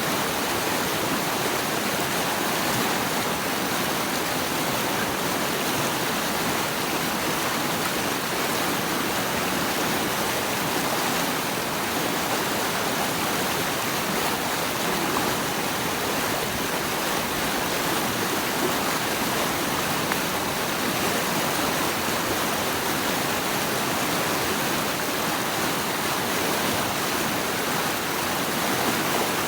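Flowing water rushing steadily: an even, unbroken hiss with no separate splashes or drops standing out.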